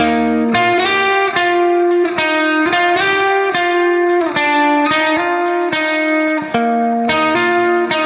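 Background music: a quick melody of single notes, a new note two to three times a second, over held lower notes.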